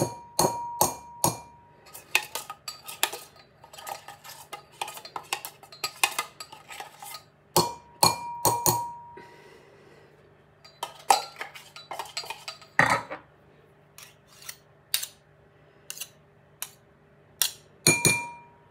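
A spoon clinking, tapping and scraping against a bowl as butter is scooped and knocked off into it: many irregular sharp clinks, some ringing briefly, with one louder knock about two-thirds through and a quieter spell after it. A faint steady hum sits underneath.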